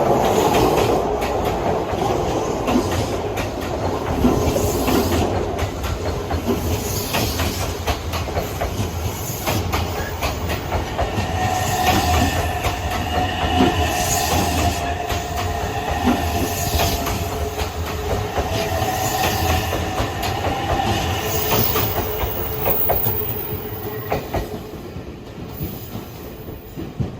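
Odakyu Odawara Line train passing: a steady low rumble with wheels clattering over rail joints, joined in the middle stretch by a steady high tone, fading away near the end.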